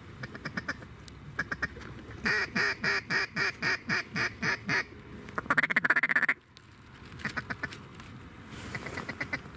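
Mallard duck call blown hard: a string of about nine loud, evenly spaced quacks, then a fast feeding chatter that stops abruptly. Fainter quacks come before and after it.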